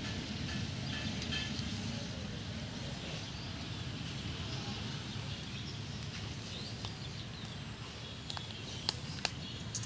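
Outdoor pond-bank ambience: a steady low rumble on the microphone with faint bird chirps and a thin steady high tone, and two or three sharp clicks near the end.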